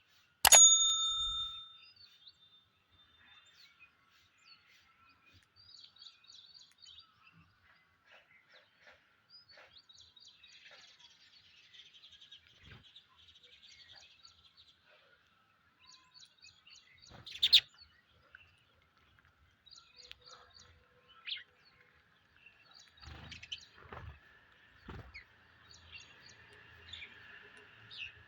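Psittacula parakeets chirping and chattering on and off, with a sharp louder call about two-thirds of the way in. A short ringing tone sounds about half a second in, and a few dull knocks come near the end.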